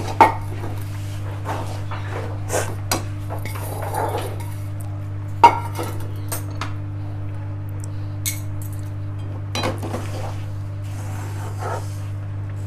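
Metal spatula scraping and knocking against an aluminium kadai as sesame seeds are stirred into melted jaggery syrup for til chikki, in scattered clicks and scrapes with a sharper knock about five and a half seconds in. A steady low hum runs underneath.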